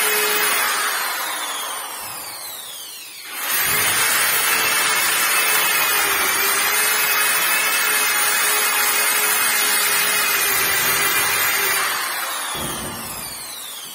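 Electric angle grinder fitted with a sanding disc, sanding down a painted wooden door. Its motor whine winds down in falling pitch about a second in, starts up again sharply at around three seconds, runs steadily, then winds down again near the end.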